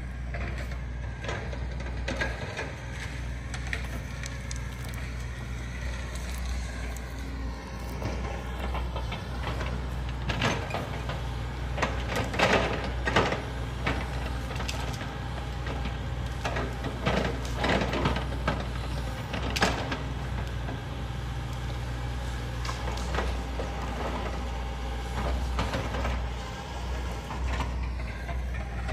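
Hitachi Zaxis 120 excavator's diesel engine running steadily, with a run of sharp clanks and knocks about halfway through.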